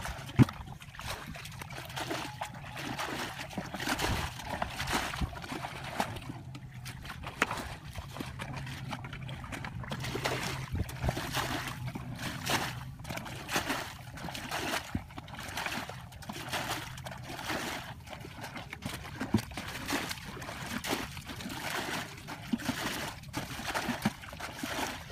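Plastic buckets scooping and tipping out muddy water in a shallow ditch, the ditch being bailed out: repeated irregular splashes and sloshes, about one every second or so.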